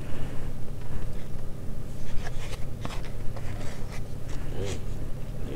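Plastic fork scraping and clicking against food in a foam takeout container, in short scratches, over a steady low rumble.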